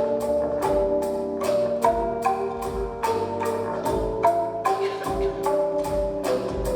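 Calung renteng, a row of tied bamboo bars struck with mallets, playing a steady, even pattern of about three notes a second, with recurring low thuds beneath.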